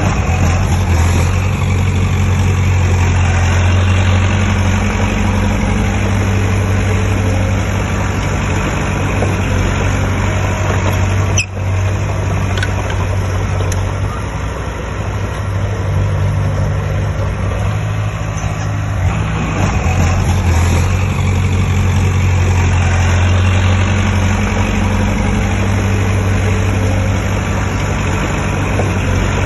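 Diesel engine of heavy construction equipment running steadily with a deep, even hum, dropping out for an instant about eleven seconds in.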